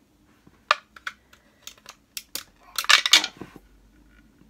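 AA battery clicking and scraping against the plastic battery holder and metal contact of a battery clock movement as it is forced in: a string of sharp clicks, then a quick clatter about three seconds in. It is a tight fit, and the battery does not go in.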